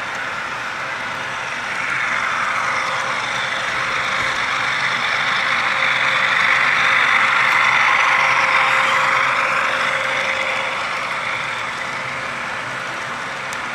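HO scale model train running past on the layout, its wheels rolling on the rails. The rolling sound grows louder from about two seconds in, peaks a little past the middle, and fades away near the end.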